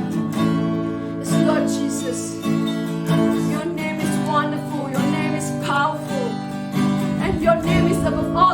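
Acoustic guitar strumming sustained chords in slow worship music.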